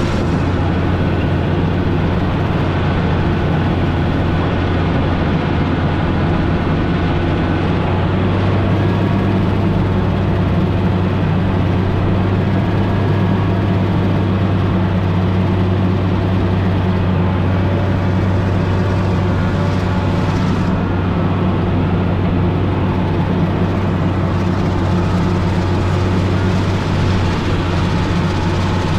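Motor grader's diesel engine running steadily, a constant low hum that holds an even pitch and loudness throughout.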